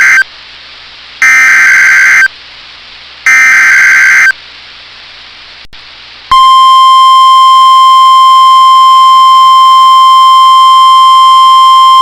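NOAA Weather Radio Emergency Alert System signal, here the start of a severe thunderstorm warning. The first SAME header data burst ends just after the start, two more burst-like data squawks follow, each about a second long and a second apart. After a pause of about two seconds, the steady 1050 Hz weather radio alarm tone comes in and holds loudly.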